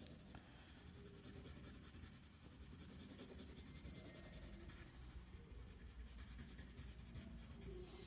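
Faint scratching of a colored pencil shading on paper.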